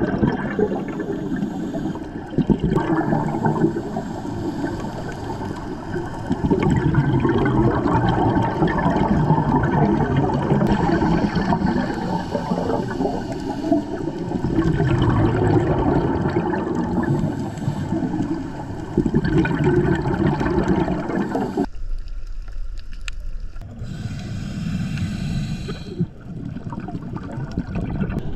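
Underwater bubbling and gurgling from a scuba diver's regulator, exhaled bubbles rumbling past the camera housing in surges every few seconds. It drops off abruptly about three-quarters of the way through, then surges again.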